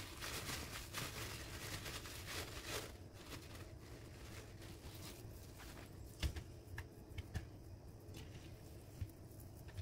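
Paper towel crinkling and rustling as it is pressed against raw ground beef to blot off the blood, for about the first three seconds. After that it goes quieter, with a few light knocks.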